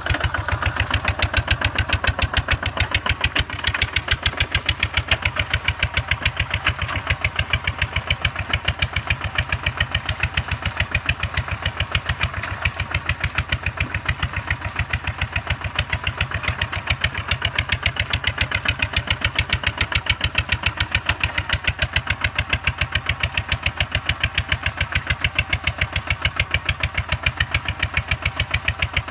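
Two-wheel walking tractor's single-cylinder diesel engine running steadily under load while pulling a plough through wet paddy mud, with an even, rapid beat.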